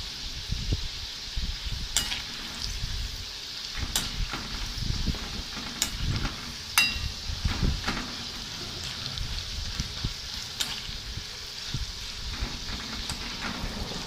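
Thinly cut papadam pieces sizzling steadily in hot oil in a metal wok. A metal spoon stirring them scrapes and clicks against the pan every second or two.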